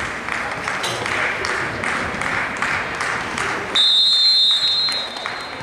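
Chatter and scattered clapping from players and spectators in a sports hall, then about four seconds in a referee's whistle blows one steady blast of nearly two seconds, the loudest sound.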